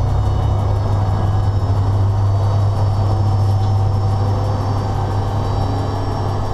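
Steady low hum and running noise inside a moving locomotive cab, with faint thin whining tones above it.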